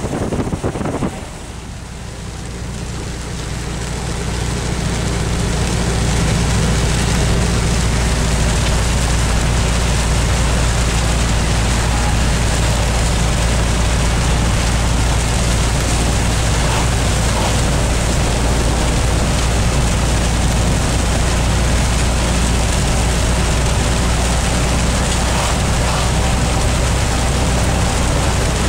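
Steady road noise inside a vehicle driving on a rain-wet highway: a low engine and tyre rumble with a hiss over it. It builds up over the first few seconds, then holds steady.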